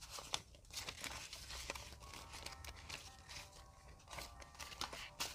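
Faint, crisp rustling and flicking of paper banknotes as a stack of dollar bills is handled and sorted, in many small scattered rustles.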